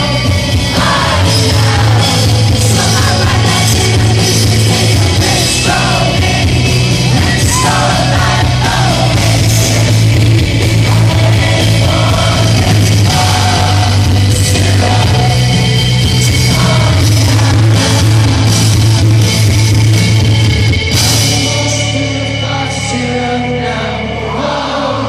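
Live rock band playing with a lead singer, loud. About 21 seconds in, the heavy bass drops out and the music gets a little quieter.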